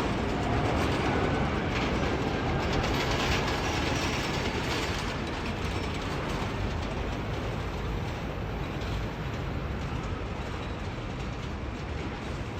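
Jet airliner's engine noise, a steady wide rushing sound that slowly fades as the aircraft moves away.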